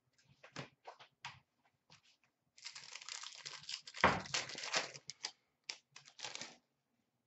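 Trading card pack's foil wrapper crinkling and tearing as it is ripped open, with cards rustling in the hands. A few short rustles come first, then a denser crinkle from about two and a half seconds in lasting a couple of seconds, then more short rustles.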